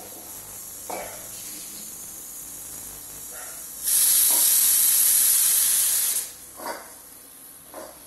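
Prestige pressure cooker whistle: the weight on the lid lifts and steam rushes out in a loud hiss for about two and a half seconds, starting about four seconds in. Before and after, only a faint steady hiss of steam escapes. The whistle is the release of built-up pressure, the sign that the cooker has reached full pressure.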